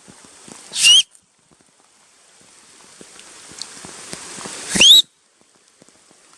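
A person whistling loudly twice, about four seconds apart, each whistle short and sliding upward in pitch: a call whistle to get someone's attention.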